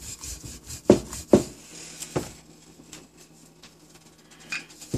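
Wooden rolling pin rolling out a stuffed paratha on a round wooden board, with a few sharp knocks against the board, the loudest about a second in.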